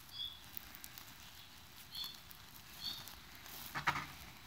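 Holset HX40 turbocharger's compressor wheel being turned by hand: a few faint short squeaks and some light clicks near the end. The heat shield is not yet fully installed and is rubbing, putting a little drag on the rotation.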